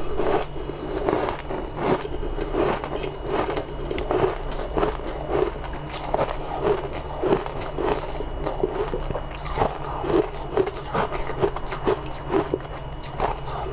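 Close-up eating: chewing with irregular crunchy bites, about two a second, over a steady low hum.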